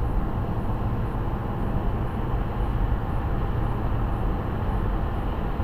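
Car cruising at freeway speed, heard from inside the cabin: a steady, low road rumble.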